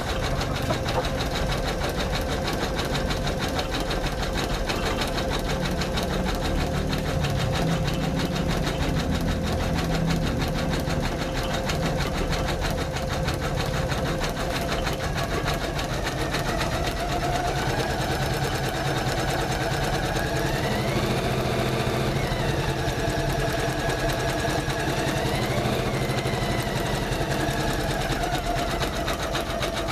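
Janome MC500E computerized embroidery machine stitching steadily with a fast, even needle rhythm. In the second half, whining tones rise and fall in pitch over the stitching.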